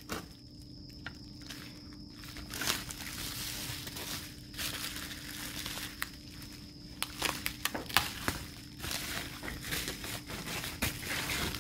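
Bubble-wrap packaging crinkling and rustling as it is handled and pulled open, with a run of sharp crackles in the second half.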